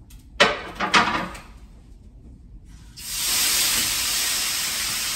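Two sharp clatters, then about three seconds in, water from a kitchen tap starts running with a sudden, loud, steady hiss.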